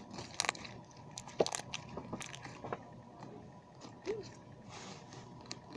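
Hands kneading and squeezing freshly activated slime, giving irregular sticky crackles and clicks, thickest in the first two seconds.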